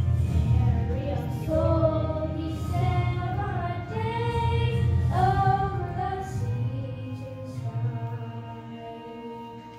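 Children's choir singing a slow melody, the voices growing quieter in the last few seconds.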